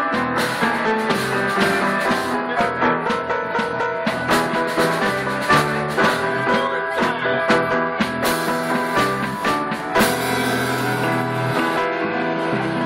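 Live rock band playing an instrumental passage without vocals: mic'd upright piano, upright bass, drum kit and electric guitar driving a busy, steady beat. About ten seconds in there is a loud crash, and the drumming thins out while notes ring on.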